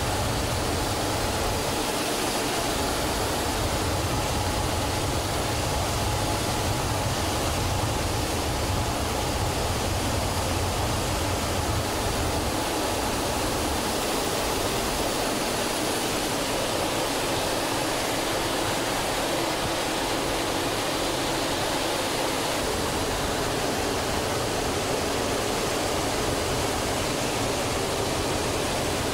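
Steady cockpit noise of an L-39 Albatros jet trainer in flight, heard from inside the canopy: its turbofan engine running and air rushing past, an even hiss that stays at the same level throughout, with a faint steady whine in the first several seconds.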